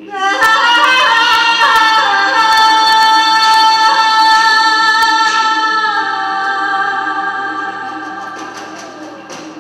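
A high female voice singing one long held note. It breaks in suddenly, holds steady for several seconds, dips slightly in pitch about six seconds in, then slowly fades away.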